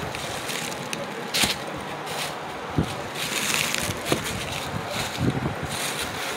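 Handling noise from a phone being carried and moved: cloth rubbing over the microphone makes a rushing rustle, with a few sharp knocks as it is handled.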